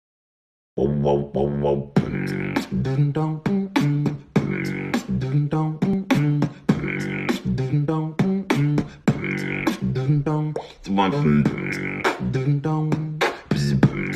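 A beatbox-style music clip: a fast, steady beat of sharp clicks and kicks over a pitched bass line, starting about a second in after a short silence.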